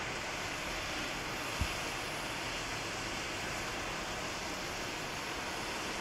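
Steady rush of a swollen, muddy river running high after a typhoon. A brief low thump sounds about a second and a half in.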